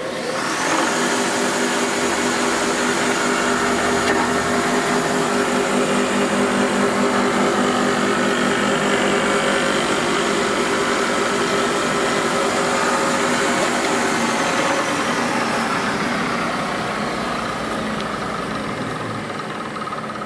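Stehle saw-spindle moulder switched on: its electric motor and spindle spin up with a rising whine within about a second, run steadily, then coast down with a slowly falling whine over the last few seconds.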